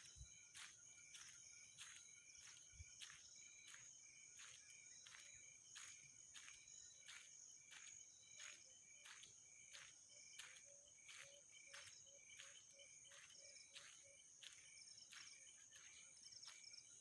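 Faint insect chorus of crickets: a steady high-pitched buzz with regular clicking chirps about twice a second.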